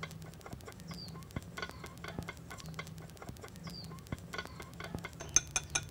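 Wooden chopsticks stirring shrimp-paste dipping sauce in a ceramic bowl, a quick uneven run of light clicks as they knock the bowl, sharper near the end. A small bird chirps a couple of times in the background.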